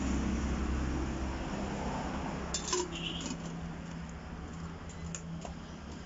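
A few light clinks of kitchenware, a cluster about two and a half seconds in and a couple more near the end, over a low steady hum.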